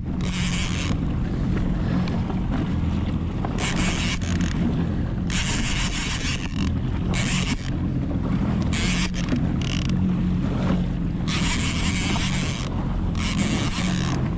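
A jet ski's engine idling with a steady low hum, under wind gusting on the microphone in bursts that come and go every second or two.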